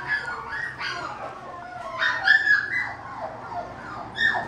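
A puppy whining and yipping: a run of short, high-pitched cries, many falling in pitch, loudest a little past the middle.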